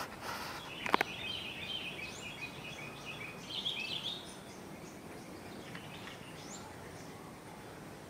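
Sooty-headed bulbuls chirping in a quick run of short bright notes for about three seconds, then only a few faint scattered calls over a steady background hiss. A single sharp click about a second in is the loudest sound.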